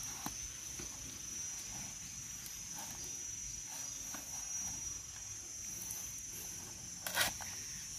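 Steady high-pitched insect trilling, with faint handling noise and a short rustle about seven seconds in.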